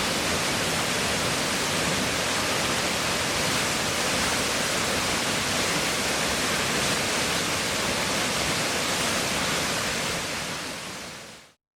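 Nishi-Shiiya Falls: the steady rush of a large waterfall, fading out near the end.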